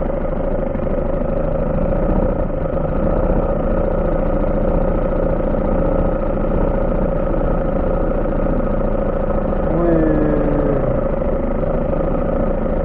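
HDX 3.6 two-stroke outboard motor running steadily at an even throttle.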